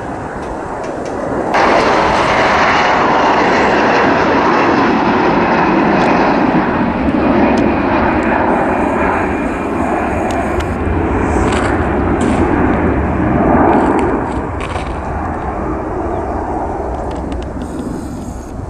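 Bombardier CRJ regional jet climbing out at takeoff thrust: a loud, steady rushing jet noise from its two rear-mounted turbofans. It comes in suddenly about a second and a half in and slowly fades over the last few seconds as the jet climbs away.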